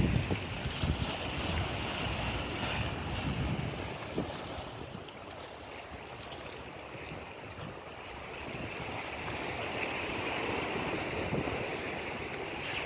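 Ocean surf washing steadily, with wind rumbling on the microphone, strongest at the start.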